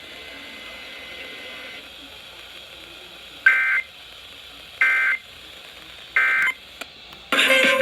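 Emergency Alert System end-of-message code: three short, identical data-tone bursts about 1.4 s apart over faint radio hiss, marking the end of the test message. A louder burst of other audio comes in near the end.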